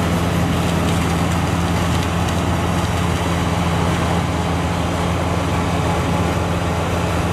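New Holland combine harvester running steadily as it cuts and threshes standing maize: a constant engine drone with a low, even hum.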